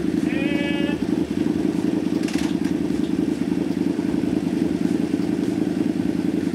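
KTM LC8 V-twin engine of a 4WD off-road go-kart running steadily, without revving.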